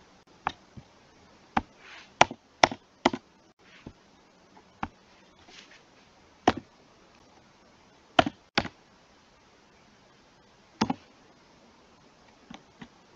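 Computer keyboard keys pressed one at a time while typing code: about a dozen separate clicks at an uneven pace with pauses of a second or two between some of them.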